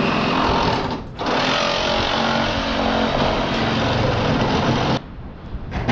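Power saw cutting into a clogged rainwater drain pipe inside a ceiling to get at the blockage. It runs loudly with a brief pause about a second in and stops abruptly near the end.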